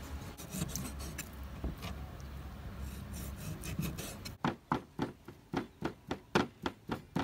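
A cleaver cutting pork fat on a wooden chopping board with faint scraping strokes. About four seconds in it starts chopping straight down into minced beef and pork fat in sharp, even knocks, about three or four a second.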